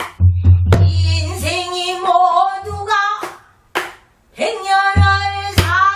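A woman singing pansori in a long, bending and wavering voice while accompanying herself on a Korean buk barrel drum. Several sharp drum strokes fall between and under her phrases.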